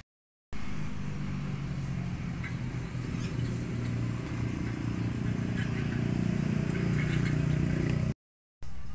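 A motor vehicle engine running with a steady low hum that grows a little louder toward the end, with a few light clicks over it. The sound cuts out completely for the first half-second and again briefly just before the end.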